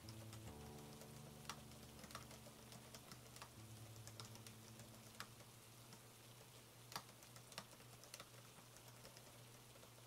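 Typing on an AlphaSmart portable word processor's keyboard: quiet, irregular key clicks, with a few sharper keystrokes standing out.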